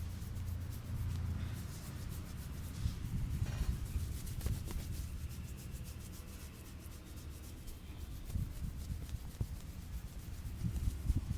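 Hands rubbing and kneading hair and scalp during a head massage: a continuous rustling, scraping sound that swells and eases with the strokes.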